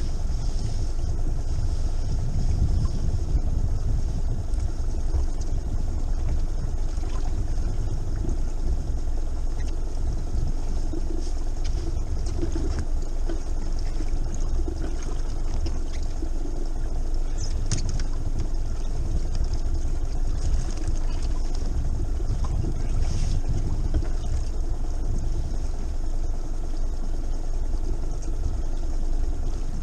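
Boat engine running steadily at idle: a constant low rumble with a few light clicks about two-thirds of the way through.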